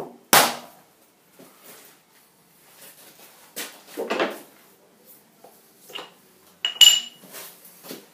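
Hammer taps on an aluminium block in a milling-machine vise, seating it down onto a parallel: a loud knock at the start, then a few more separate knocks and metal clinks, one near the end ringing briefly.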